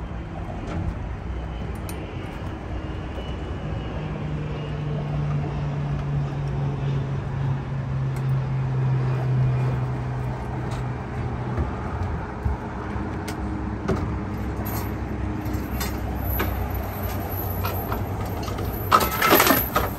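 Steady low engine rumble. A deeper hum swells and drops slightly in pitch over several seconds as it passes, with scattered knocks and a brief louder burst near the end.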